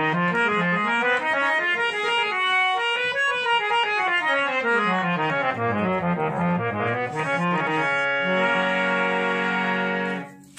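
Double-bellows harmonium being played: quick runs of notes up and down the keyboard, then a chord held for about two seconds that cuts off near the end.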